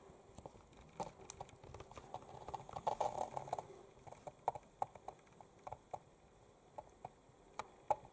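Model railway train running on the track: faint, irregular light clicks and small rattles, with a denser cluster of rattling about three seconds in.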